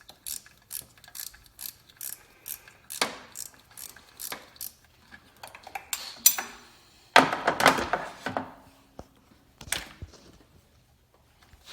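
Socket ratchet clicking in quick, even strokes, about two or three a second, as an alternator mounting bolt is turned out. About seven seconds in comes a louder clatter and scrape of metal, then a few scattered knocks.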